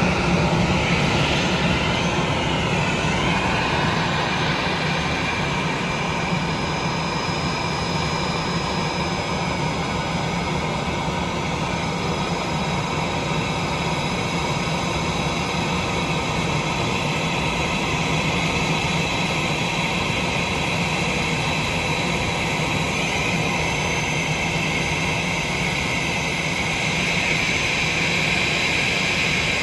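Turbofan engines of a twin-engine jet airliner running at taxi power, a steady rushing noise with high whining tones. The whine grows a little louder near the end as the aircraft comes closer.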